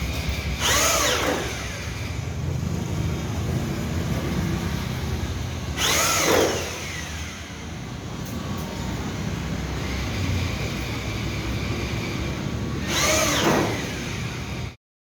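Three short mechanical whirs about six seconds apart, each sweeping down in pitch, over a steady workshop hum. The sound cuts off abruptly just before the end.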